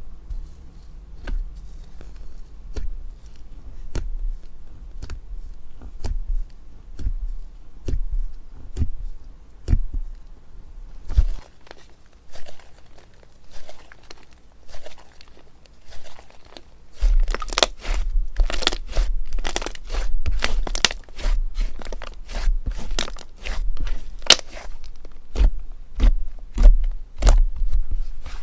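Slime being squeezed and pressed by hand, giving crisp crackling pops and clicks. The pops come sparsely at first and grow denser and louder about two-thirds of the way in.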